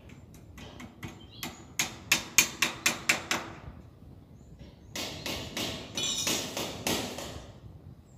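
Hammer striking the metal trellis door's fittings during installation: about a dozen sharp, ringing blows, roughly three a second, strongest in the middle of the run. A couple of seconds of rougher scraping and rattling follows near the end.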